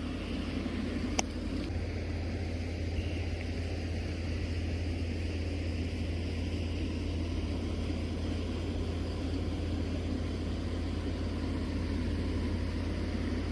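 Steady rain falling, an even hiss over a low rumble, with a single sharp click about a second in.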